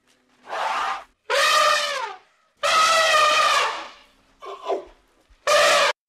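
Elephants trumpeting: five calls in quick succession, each a second or shorter, with short pauses between.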